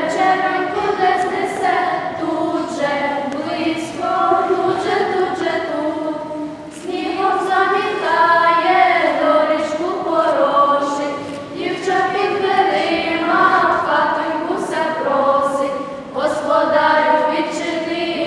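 A small choir of girls singing a Ukrainian Christmas carol (koliadka) in unaccompanied harmony, the sung phrases broken by short pauses about every four to five seconds.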